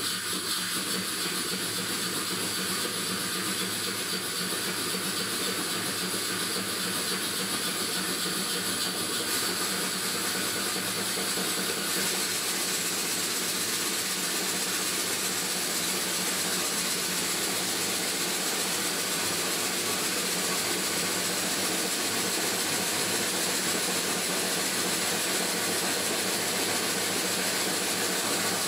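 Stuart No.1 single-cylinder model steam engine running on compressed air, its exhaust giving a steady, even hiss.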